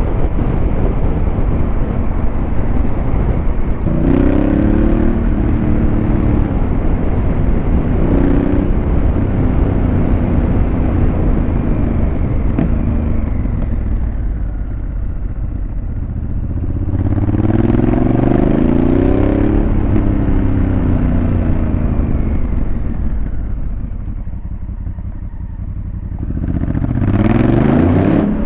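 Motorcycle with an aftermarket Fuel exhaust accelerating hard several times, the engine note rising through the revs on each pull and dropping back between them, over a steady rush of wind on the microphone.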